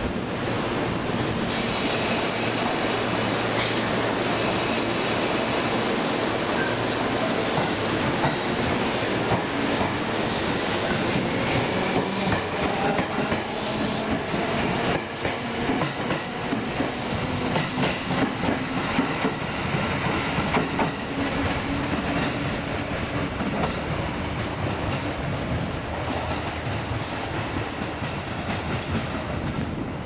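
Seibu Tamagawa Line electric commuter train moving along the station platform, its wheels clattering over the rail joints, with patches of high hissing in the first half. The sound eases off near the end.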